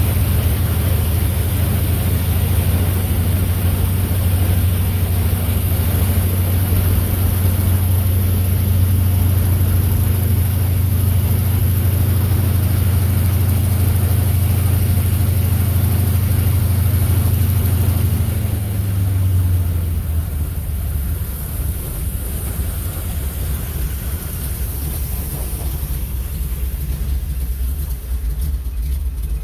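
Floatplane's piston engine running steadily with a low drone, heard from inside the cabin. About two-thirds of the way through it is throttled back, dropping in pitch and loudness, and keeps running more quietly.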